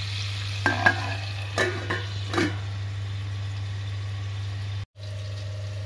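A few sharp metal clinks as a stainless steel lid is handled and set on a kadhai where amla is cooking in mustard oil, over a steady low hum and faint sizzling.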